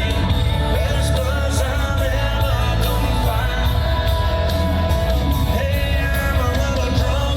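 Live country-rock band playing loud amplified music with sung vocals, heavy bass and a steady drum beat, heard from the back of the audience with crowd voices singing and shouting along.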